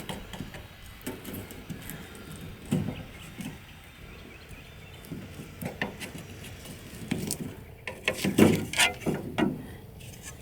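Plastic tailgate handle bezel being worked loose and handled: scattered light clicks and knocks, with a busier cluster of louder clicks about eight seconds in. The bezel's retaining tabs are broken and it is held on with Velcro.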